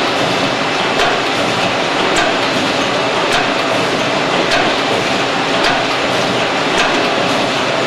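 A Longford batch-count collation line feeding a Shanklin HS4 wrapper running steadily: a constant mechanical din with a sharp click about once a second as it cycles.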